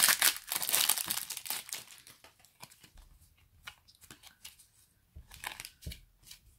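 Foil wrapper of an Adrenalyn XL trading-card booster pack crinkling as it is torn open for about the first two seconds. Then come scattered light clicks and taps as the cards are slid out and leafed through.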